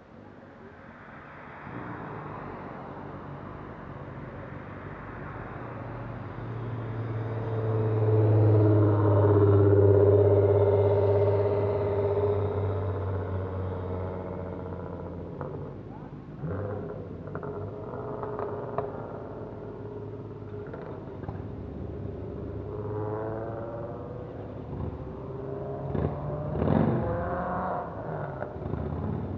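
Vehicles passing on a road. One engine's hum swells to a loud peak about a third of the way in, then fades away. Near the end a quieter pass comes, with a brief rise in engine pitch.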